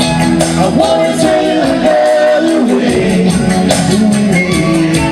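Live band music: guitars and keyboard over a steady beat, with some singing.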